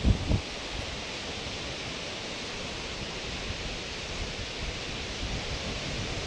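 Steady hiss of small waves breaking on a sandy shore, with a brief low rumble in the first half second.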